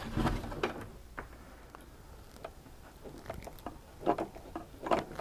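Handling noises of electrical cable and hand tools: a louder low knock and rustle near the start, then scattered light clicks and taps.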